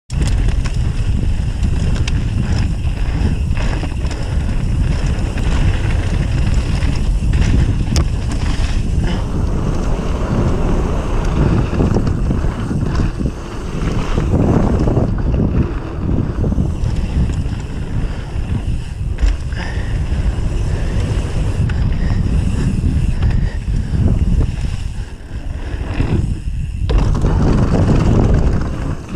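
Wind buffeting an action camera's microphone as a mountain bike descends a dirt downhill trail at speed, with scattered knocks and rattles from the tyres and bike over rough ground. The noise dips briefly near the end before picking up again.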